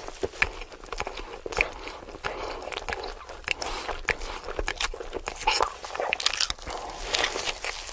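Close-miked eating: a person biting into and chewing crunchy food, with many sharp, irregular crunches and wet clicks.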